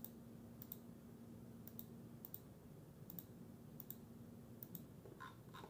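Faint computer mouse clicks, mostly in quick pairs about every three-quarters of a second, over near-silent room tone with a low steady hum.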